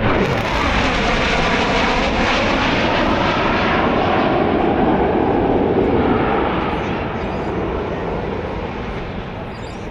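A military jet flying past low and loud, its roar dropping in pitch as it passes, then slowly fading away over the last few seconds.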